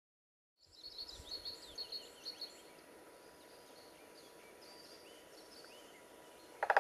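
Outdoor ambience with birdsong: a quick series of high chirps about a second in, then fainter scattered bird calls. Just before the end a loud brass-like musical note starts.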